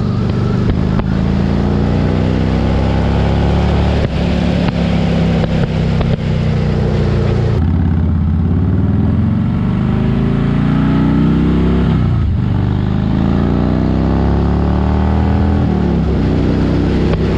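Harley-Davidson Heritage Softail Classic's V-twin running through Vance & Hines Big Shots Long exhaust pipes while riding, heard from on the bike. The engine note rises again and again as the bike pulls through the gears, dropping back at each shift; there are two shifts in the latter half.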